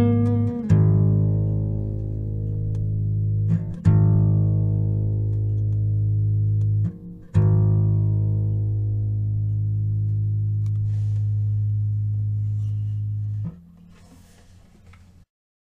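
Blues guitar music: three final chords, each struck and left to ring out slowly. The last is cut off near the end, leaving a faint hiss before the sound stops.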